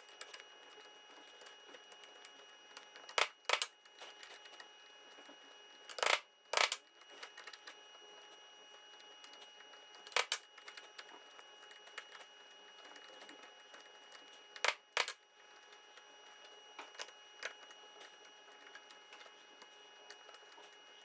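Wood chisel paring and clearing waste from hand-cut dovetail sockets: quiet scraping and small clicks, broken every few seconds by sharp wooden knocks, mostly in pairs.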